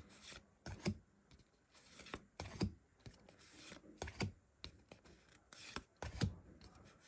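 Pokémon trading cards being flicked one by one from the front to the back of a handheld stack: a string of short papery swishes and snaps at irregular intervals, roughly one every half second to a second.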